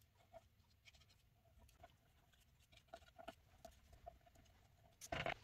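Near silence: room tone with faint scattered light taps and clicks, then a brief louder rustle-like noise near the end.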